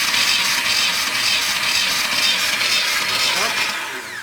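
VAZ-21011 four-cylinder engine cranked over on the starter motor with the throttle wide open and the ignition disconnected, for a compression test; cranking runs steadily and stops near the end, the sound dying away.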